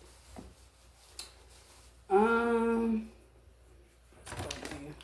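A person humming one steady held note for about a second, a couple of seconds in. Faint clicks and a short rustle are heard around it.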